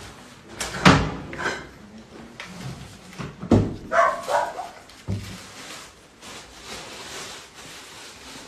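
Drawers and furniture knocked and thumped during a room search: a few sharp knocks, the loudest about a second in. A short burst of barking comes around four seconds in.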